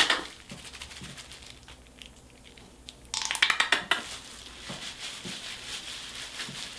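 Close-up handling noise from hair dye being worked into the hair by hand: a sharp click at the start, then a spell of dense crackling about three seconds in, and a softer steady crinkling rustle after.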